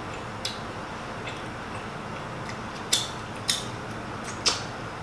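A handful of sharp clicks and taps, the loudest about three seconds in and again near the end, over a steady low hiss: food and a gravy container being handled as gravy goes onto a piece of fried chicken.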